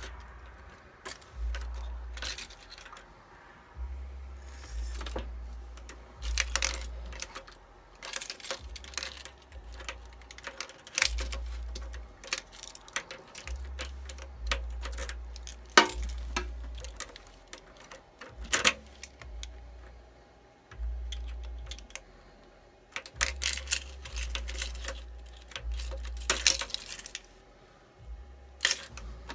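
Clusters of sharp metallic clicks every second or two from the 2004 Suzuki GSX-R1000's starter solenoid and electrics as they pulse on and off. The bike will not start even with a full battery, a sign of an electrical fault.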